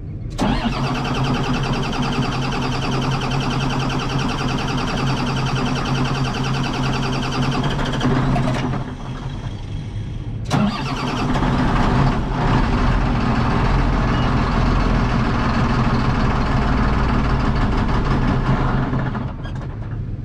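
Diesel tractor engine cranked on its starter in two long attempts, about eight seconds, then after a short pause and a click, about nine more. Air in the fuel system has just been bled after both fuel filters were changed, and the engine is being turned over to get it to run.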